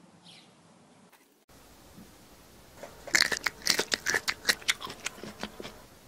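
A quick run of crisp, sharp crackling crunches, a dozen or more in about three seconds, starting about halfway through.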